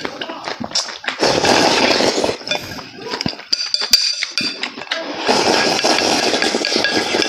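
A man slurping noodles and sauce straight from the rim of a tipped ceramic bowl, in two long noisy pulls. Between them, chopsticks click and scrape against the bowl.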